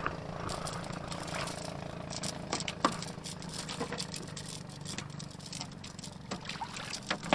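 KastKing Brutus 2000 spinning reel being worked during a fight with a trevally: a steady mechanical hum with scattered clicks and rattles. The hum fades out about two-thirds of the way through.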